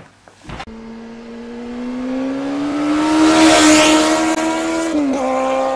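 Vehicle engine sound effect: a steady engine note that starts about half a second in, swells and climbs slowly in pitch, with a rushing whoosh at its loudest around three to four seconds in, then drops in pitch about five seconds in as if passing by.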